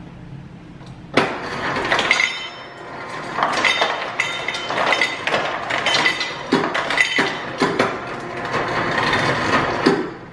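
Refrigerator door dispenser filling a water bottle: a steady rush with frequent clinks and rattles, starting about a second in and cutting off suddenly near the end.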